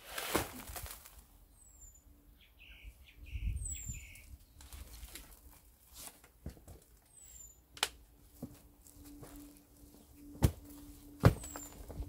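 Scattered knocks and clunks from a stainless steel washing machine drum being handled and tipped upside down onto a plastic sheet to empty its compacted worm compost, with the two loudest knocks near the end. A few faint bird chirps come and go in the background.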